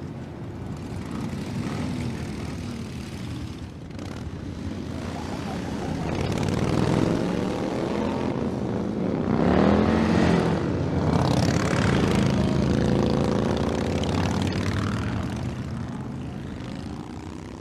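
Motor vehicle engines passing by: the sound builds to its loudest about ten seconds in, the pitch drops as they go past, and then it fades away.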